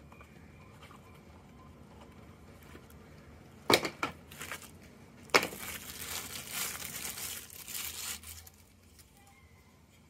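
Two sharp snaps about four and five and a half seconds in, then the clear plastic wrap around a folding knife crinkling for about three seconds as it is pulled off.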